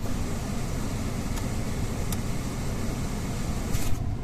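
Mercedes-Benz W210 climate-control blower fan running at a high setting, a steady rush of air from the vents over the low rumble of the idling engine. About four seconds in there is a short rustle, after which the rush of air drops off.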